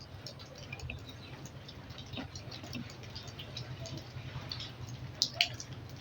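Scattered light clicks and taps of small tools and parts being handled during circuit-board repair, with two sharper clicks about five seconds in, over a steady low hum.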